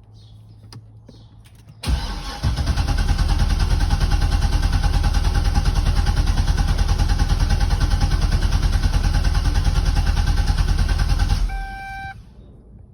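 C6 Corvette V8 being cranked by its starter for about nine seconds with an even, pulsing rhythm, never catching, then cut off, followed by a brief electronic beep. Cranking with no firing: the engine is getting no fuel because of a burnt fuel pump relay.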